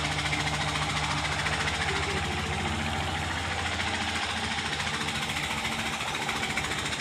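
Peter diesel engine running steadily with an even, rapid beat.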